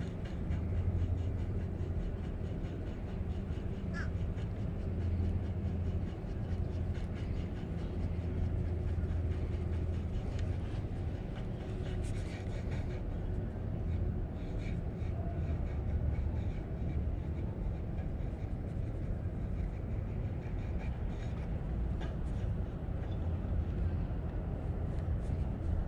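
Wind buffeting a small action-camera microphone: a steady low rumble that rises and falls, with faint ticking above it.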